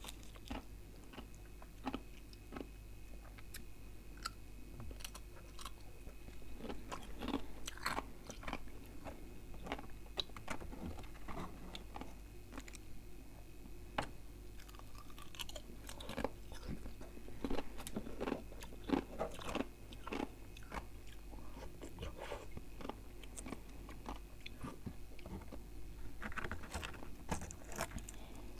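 Close-miked crunching and chewing of freezer frost, a run of irregular crisp crackles.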